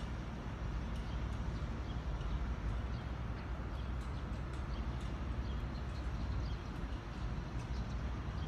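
Outdoor ambience: a steady low rumble with scattered faint, short high chirps of small birds.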